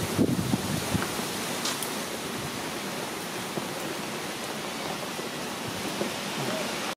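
A steady, even outdoor hiss, with a few soft rustles and knocks in the first second. The sound cuts off suddenly at the very end.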